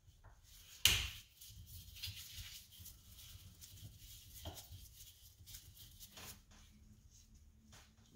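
A sharp metal knock about a second in, then nitrogen hissing out of a Fox shock's charge valve for about five seconds under light clicks of handling, before it stops. This is the last of the shock's nitrogen charge being bled off before the rebuild.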